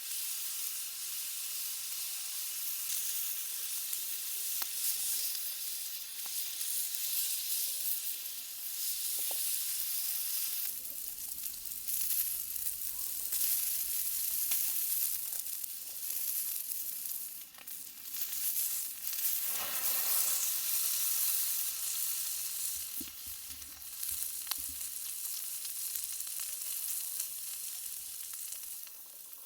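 Thick-cut beef tongue steak sizzling on a hot iron grill plate over a campfire, a steady hiss with a few small pops and a brief louder surge about two-thirds of the way through.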